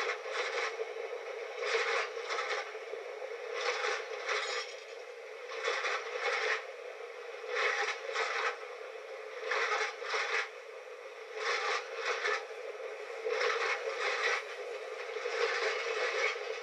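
Train wheels clacking over rail joints as a rake of coaches rolls slowly past: a close pair of clacks comes about every two seconds over a steady rumble.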